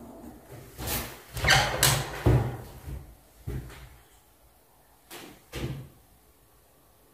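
Old wooden casement window being handled: its rusty latch worked and the wooden frame and shutters knocking and rattling in a string of sharp knocks, most in the first half, with two more a little past halfway.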